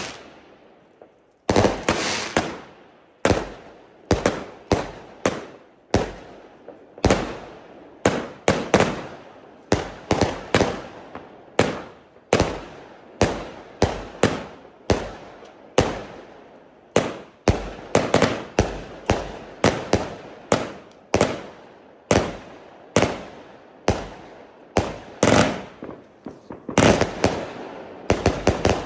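A 130-shot Zena Kracherblitz compound fireworks cake firing shot after shot: sharp launch thumps and aerial bursts at roughly one to two a second, with a denser run of bangs near the end.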